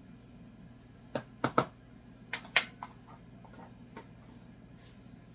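Measuring spoon clicking and tapping as spoonfuls of cinnamon are scooped from a large spice bottle and tipped into a mixing bowl. It is a string of sharp light taps, some in quick pairs, spread over a few seconds.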